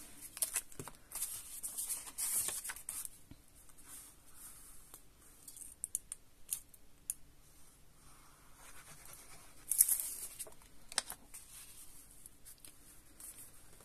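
Paper and card stock rustling and sliding on a work mat as pieces are handled, glued with liquid glue and pressed down, with scattered small taps and clicks; the loudest rustles come about ten and eleven seconds in.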